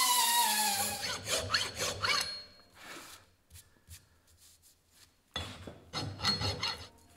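A small die grinder's whine falls in pitch as it winds down in the first second. Then a hand file rasps back and forth across the edge of the bottle jack's metal hex cap, held in a vise, in two spells of strokes about a second and a half long with a pause between.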